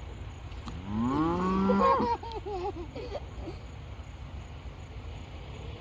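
A cow mooing once: a loud, long call that rises in pitch about a second in and trails off in a short wavering tail.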